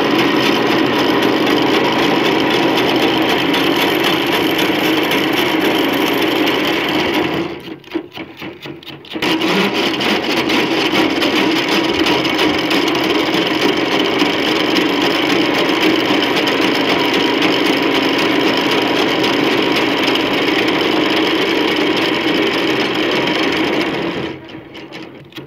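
Cotton candy machine running, its spinner head whirring steadily as it spins pink sugar floss. The sound drops away briefly about a third of the way in, then falls off again near the end.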